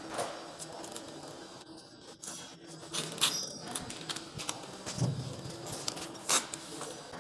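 Clear adhesive tape pulled off its roll and pressed onto a rubber seal strip by gloved hands: rustling and crinkling with several sharp rips and crackles, the loudest about three seconds in and again near the end.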